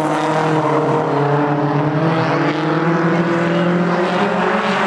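Engines of several 1660 Modified stockcars running hard together in a pack, their overlapping notes steady and loud, dipping a little in pitch about two seconds in.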